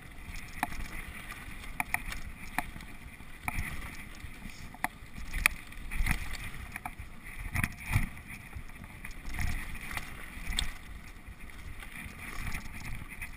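Mountain bike descending a rough dirt trail: a steady rumble of tyres and wind on the microphone, broken by frequent sharp clicks and knocks as the bike jolts over bumps and stones.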